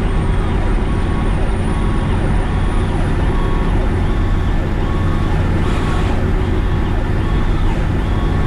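2003 Pierce Dash fire truck running on an emergency response: a steady heavy rumble of engine and road noise, with a siren cycling up and down about once a second over it.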